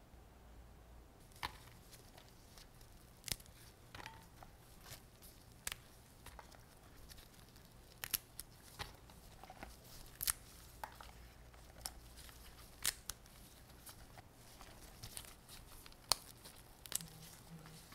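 Stems being snapped and pulled off shishito peppers by hand: a run of small, crisp snaps and tears at irregular intervals, starting about a second and a half in.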